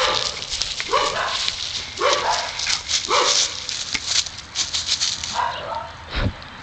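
Dogs play-fighting: short, downward-falling play barks about once a second, four in the first three seconds and another near the end, amid scuffling, with a brief low thump near the end.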